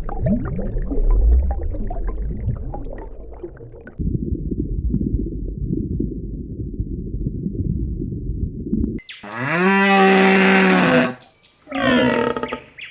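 Animal sounds: low rumbling with faint gliding calls, then a steady low rush. About nine seconds in comes a loud, drawn-out call held at one pitch for about two seconds, and a shorter call rises and falls near the end.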